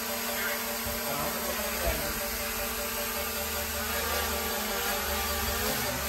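DJI Mini 4 Pro quadcopter's propellers and motors whining steadily as the small drone flies, the pitch of the whine wavering slightly a few times.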